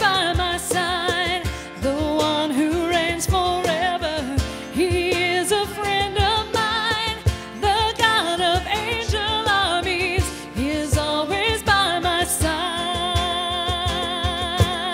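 Contemporary worship band playing a song with a steady drum beat while singers sing the melody with a wavering vibrato.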